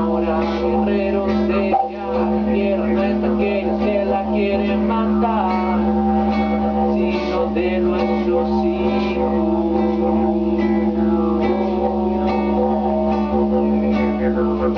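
A band's song: guitar with a singing voice over steady held notes.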